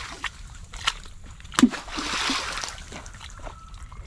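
Water splashing in a small muddy pond: a sharp splash about a second and a half in, followed by about a second of churning water.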